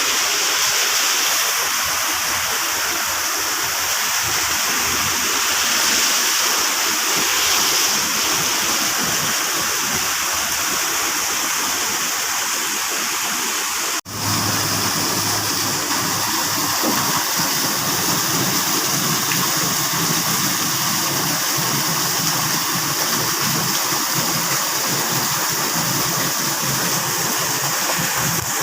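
Rainwater rushing and pouring steadily under pressure. About halfway through there is a short break, after which a low steady hum runs under the water.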